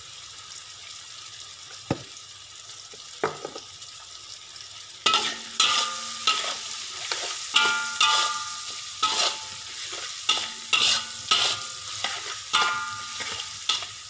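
Stainless steel spatula scraping and clanging against a large metal wok as sausage slices and crab sticks are stir-fried, over a sizzle. A faint sizzle with two light knocks comes first; from about five seconds in, the stirring strokes come quickly, about two a second, the wok ringing after each.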